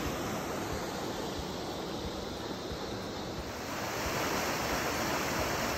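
Mountain creek water rushing steadily beneath snow and ice, a constant watery hiss, with some wind buffeting the microphone.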